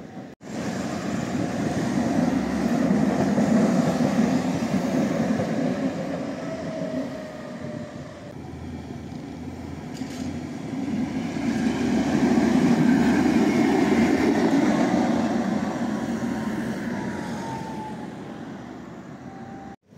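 Tram running along its tracks: a steel-wheel rumble that swells twice, about three and about thirteen seconds in, with a whine that slides in pitch.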